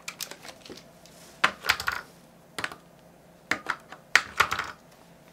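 Plastic clicks and knocks of a Nikon Coolpix L840 camera's battery compartment door being opened and AA batteries being handled and pushed into it, in irregular clusters of sharp clicks.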